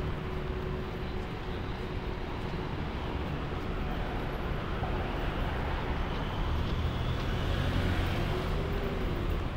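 Road traffic on a city street: a steady wash of car and bus engines and tyre noise, growing louder about seven seconds in.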